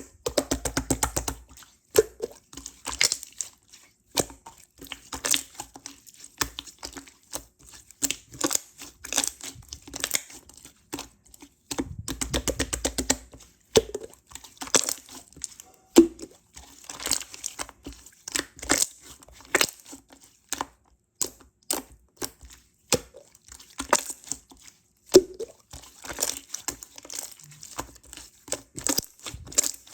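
Clear slime being kneaded and stretched by hand, giving sticky crackles and small air-bubble pops, with a quick dense run of popping near the start and another about halfway through. The air bubbles left in the slime make the pops.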